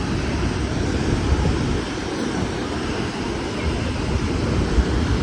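Steady rush of a waterfall: a constant noise, heaviest in the low end.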